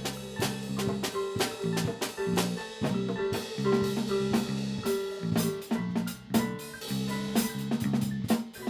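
Music: a drum kit playing a busy, steady beat over sustained low bass notes and held tones.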